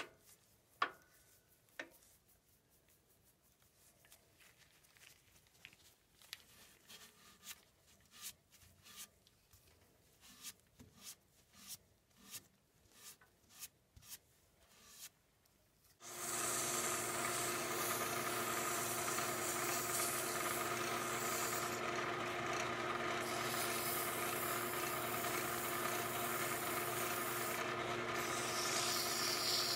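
Short rubbing strokes of a brush and gloved hand wiping dark finish onto a turned wooden chair post, coming faster as they go. About halfway in, a wood lathe starts running with a steady hum while sandpaper is held against the spinning post.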